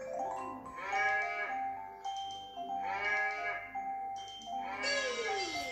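Cartoon cow mooing twice, about a second in and again near three seconds, over a tinkly children's melody, played through a tablet's speaker; a falling sound effect comes near the end.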